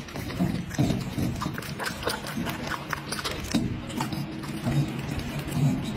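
Dog eating close up, biting and chewing watermelon and raw food with wet smacking and irregular crunchy clicks, over low grunts.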